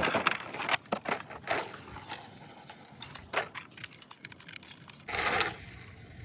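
Toy packaging being handled and opened: a run of short clicks, scrapes and crinkles, with a longer tearing or rustling burst about five seconds in.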